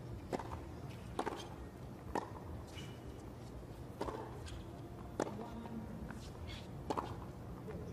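Tennis rally: a serve and then the ball struck back and forth by rackets on a hard court, about six sharp pops one to two seconds apart.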